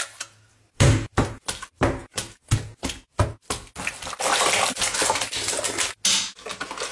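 A quick run of knocks and squelches, about three to four a second, from a hand smashing an egg into soft chocolate dough, then a longer stretch of squelching and scraping about four seconds in as the hand mashes the mix in a steel pot.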